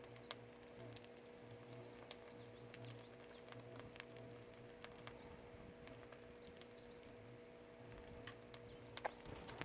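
Firewood burning in a traditional Korean agungi firebox, crackling faintly with sparse, irregular pops and snaps, a few sharper ones near the end, over a faint steady hum.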